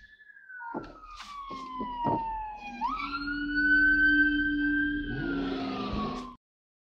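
Police car siren wailing: a falling tone that sweeps sharply back up about three seconds in, holds, then falls again, with a few sharp ticks in the first two seconds. The sound cuts off abruptly near the end.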